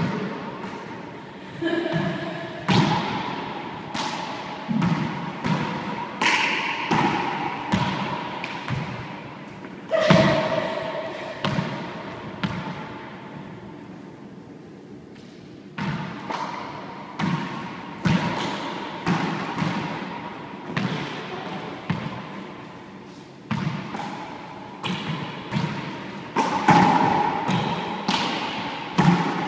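Handball rally in an enclosed court: a small rubber handball slapped by hand and smacking the front wall and floor again and again, each hit echoing off the hard walls, with a quieter spell of a few seconds near the middle.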